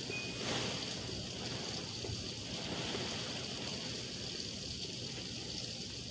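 Heavy rain pouring down in a steady hiss during a thunderstorm downpour.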